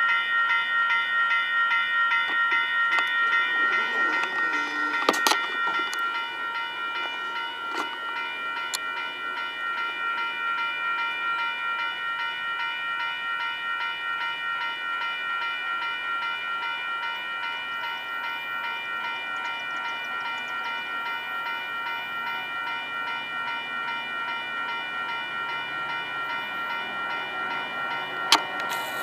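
Railroad grade-crossing warning bells ringing in a fast, even, repeating pattern, starting suddenly: the signal that a train is approaching the crossing.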